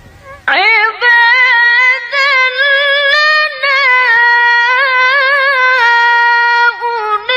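A woman reciting the Quran in melodic, ornamented tilawah style. Her voice comes in about half a second in after a short pause, with long, high held phrases full of wavering ornaments and a few brief breaks for breath.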